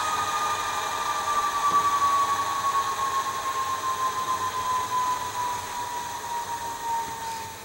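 ESU LokSound sound decoder in an N-scale Alco DL-109 model playing its diesel engine sound through the model's tiny speaker, winding down: a hissy running sound with a whine that slowly falls in pitch and fades out near the end, as in an engine shutdown.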